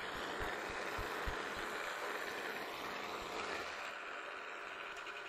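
Roughing end mill on a milling machine cutting a slot in a metal jaw blank under power feed, with coolant flowing: a steady cutting noise, with a few low thumps in the first second or so.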